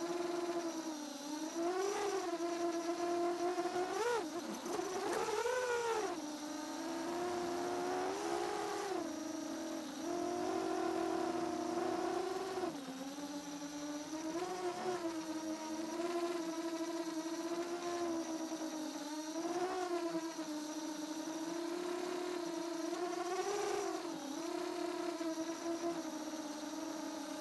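Shendrones Squirt V2 FPV quadcopter's motors and propellers whining in flight. The pitch rises and falls in quick swoops as the throttle is worked, a throttle the pilot found very sensitive.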